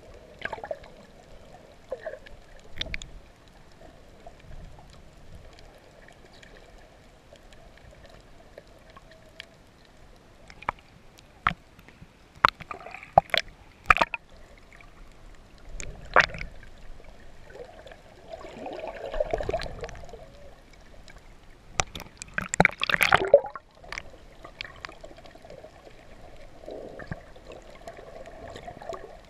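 Water moving around an underwater camera, heard muffled, with clusters of sharp splashes and knocks about halfway through and a louder cluster about three quarters of the way in.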